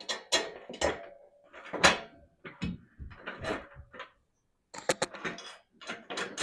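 Plant stand parts knocking and clinking together in irregular sharp clacks as pieces are handled and fitted into the joints.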